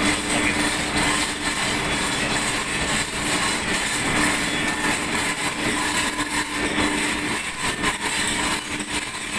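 Steady machinery din of a ship's engine room, with a constant hum running through it.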